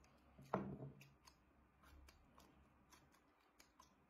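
Faint small clicks and ticks of eating and handling tableware, with one louder short sound about half a second in.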